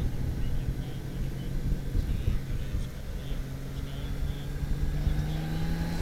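Touring motorcycle running down the road, its engine a steady hum under low wind rumble on the microphone; in the second half the engine note climbs slowly.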